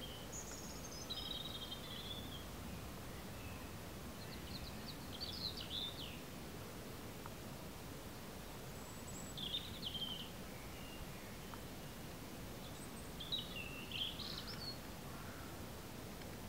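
Small birds singing in short chirping phrases, about four of them a few seconds apart, over a steady background hiss.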